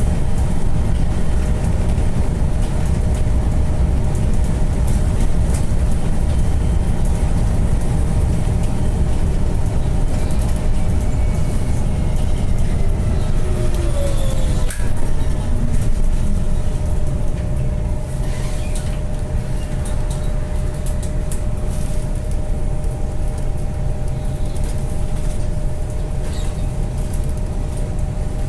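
Bus running: steady engine and road rumble, with a steady whine and a falling whine about halfway through.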